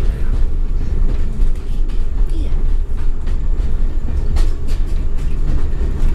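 Steady low rumble of a moving passenger train, heard from inside a coach. The wheels run on the track with scattered clicks and knocks.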